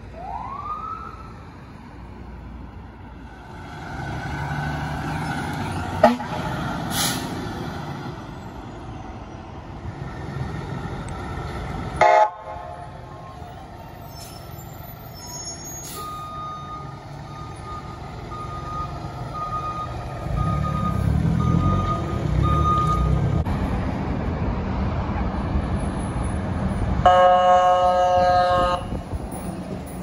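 Emergency vehicle warning sounds in a run of short clips. A police SUV's siren gives a brief rising chirp at the start, and a short horn blast comes partway through. Near the end a fire engine's engine rumbles as it pulls away and its air horn gives a loud blast.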